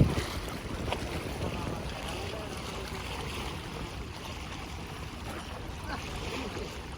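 Steady outdoor background noise with some wind on the microphone.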